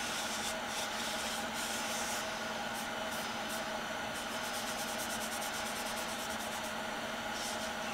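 Cotton rag rubbing stain into a small wooden cylinder case: soft swishing wipes, with a run of quick short strokes about halfway through. A steady hum runs underneath.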